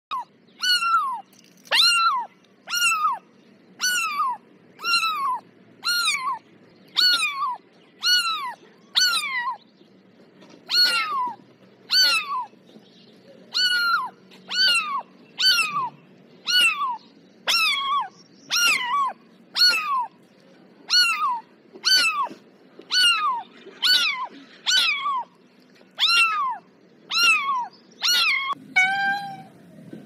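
Kitten mewing over and over, about one short high-pitched mew a second, each falling in pitch. Near the end the meows turn lower and steadier.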